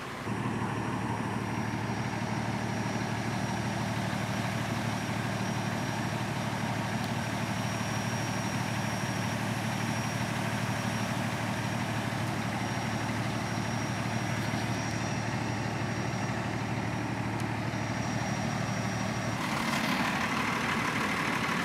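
Fire engine's diesel engine idling steadily, a low even hum. About two seconds before the end it gets a little louder and brighter.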